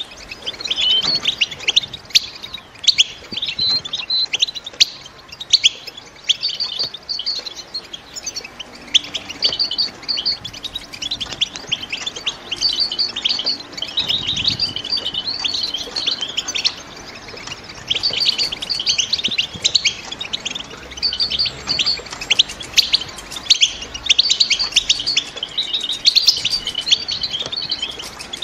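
Female European goldfinches chattering: a continuous twitter of quick, high chirps in runs a second or two long with short breaks between them. This is the 'bitbita' call of hens in breeding condition, ready to mate and lay, and it is used to set a male goldfinch singing.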